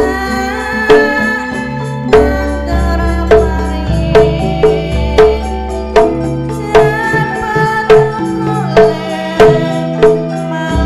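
Javanese gamelan playing a tayub gending: ringing metallophone tones over a steady pulse of loud drum strokes, with a woman singing.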